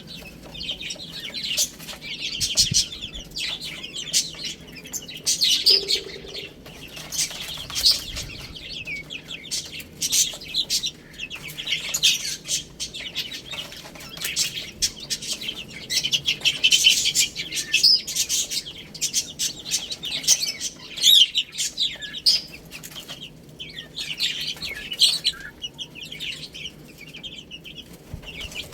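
A brood of baby chicks peeping together: many short, high chirps overlapping in a continuous chatter that swells and fades in waves.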